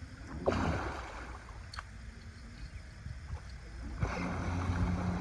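Water splashing and knocks against a small boat as a fishing net is paid out into the water by hand. There is a rushing splash about half a second in, a sharp knock a little later, and a longer stretch of splashing near the end.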